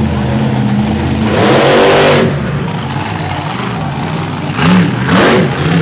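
Monster truck engine running and revving hard. It surges once, rising in pitch, about a second and a half in, then gives two short, sharp revs near the end as the truck climbs onto the row of wrecked cars.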